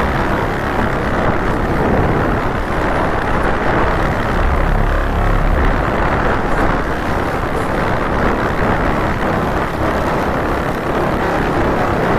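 Loud, steady, rumbling noise with no clear tone, from an ultrasonic microphone jammer interfering with a recording microphone; the noise drowns out any speech.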